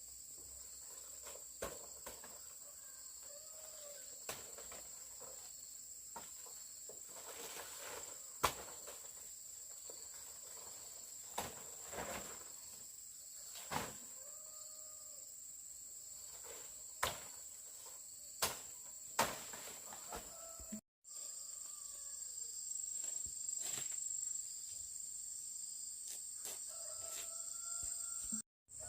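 Steady high-pitched insect drone, like crickets, with scattered sharp knocks and clicks and a few faint bird calls.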